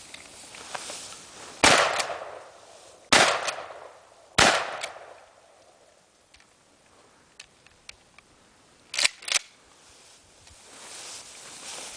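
Three shots from a 20-gauge Remington 870 Express pump shotgun, about a second and a half apart, each with a trailing echo. After a pause, near the end, two quick sharp clacks of the pump action being worked.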